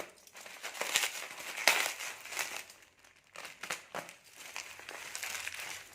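Plastic parcel packaging crinkling and rustling in the hands as a parcel is opened, in irregular bursts of crackle.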